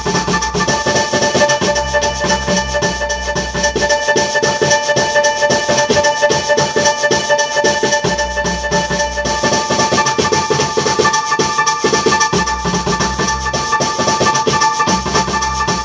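Instrumental music: several steady high tones held throughout over a dense, fast ticking rhythm, with a deep bass that drops out and returns every few seconds.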